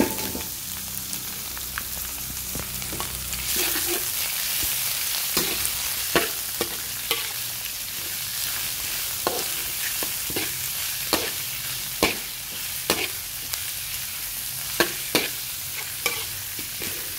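Frog pieces sizzling in hot oil in a metal wok while a metal spatula stir-fries them. The spatula scrapes and knocks against the wok, sharp clacks roughly once a second. The sizzle swells a few seconds in.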